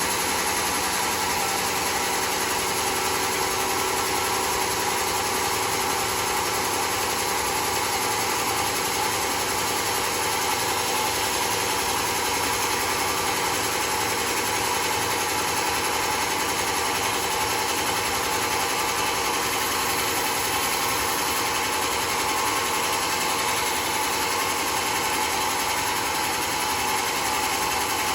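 Sawmill machinery running at a steady, unchanging level, with no distinct cuts or impacts.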